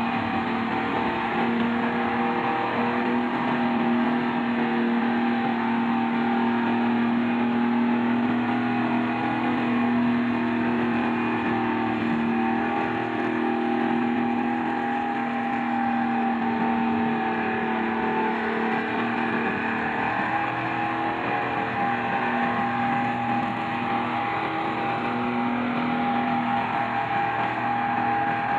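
A vehicle engine running steadily, its pitch holding nearly level throughout.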